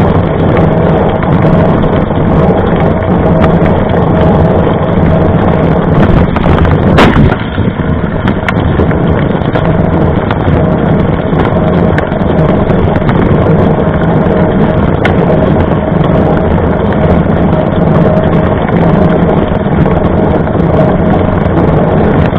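Wind rushing over the microphone of a bike-mounted camera, mixed with the hum of a knobby mountain-bike tyre rolling on asphalt, loud and steady. A single sharp knock about seven seconds in.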